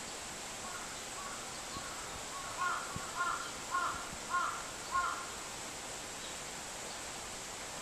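A crow cawing in a run of five evenly spaced caws about half a second apart, with a few fainter calls before them. A steady faint high-pitched hiss runs behind.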